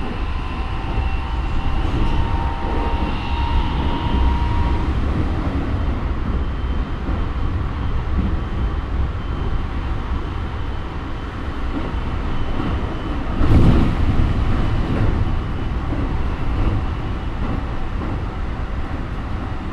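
Interior running noise of a Keikyu 1000 series electric train with a Mitsubishi IGBT VVVF inverter: wheel and track rumble under the traction motor and inverter whine. The whine fades out after the first few seconds and comes back near the end. A sudden louder rush comes about two-thirds of the way through.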